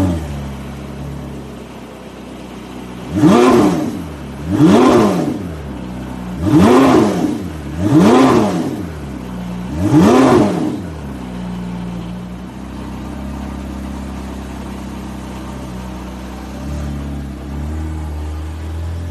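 Porsche engine idling, with a brief flare at the start, then revved five times in quick blips, each rising and falling in pitch, before settling back to a steady idle.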